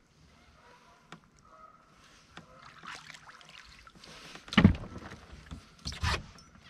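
Heavy thumps of boots stomping on a bass boat's front deck, two loud ones about a second and a half apart in the second half, as the angler sets the hook and braces against a fish; a few faint clicks come before.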